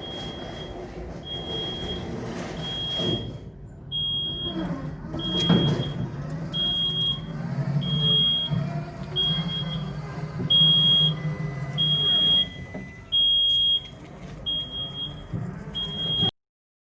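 A lorry's reversing alarm beeps about once a second, each beep a single high tone, over the steady low running of a diesel engine, with some knocks and clatter. Both stop abruptly near the end.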